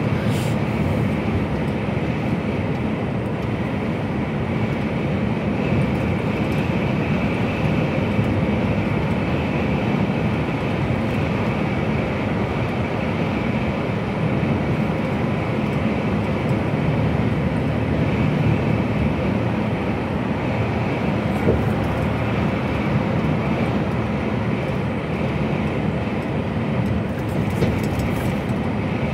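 Steady drone of an HGV lorry's engine and tyres heard inside the cab while cruising at motorway speed, with a few faint clicks near the end.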